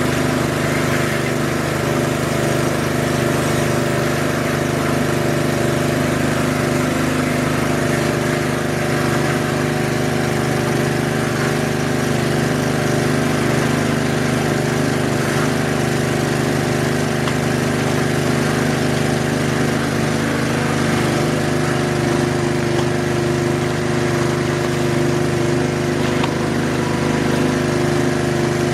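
Small gasoline engine of a 2.5-inch Proline gold dredge running steadily at one speed, driving the dredge's water pump and hookah air supply.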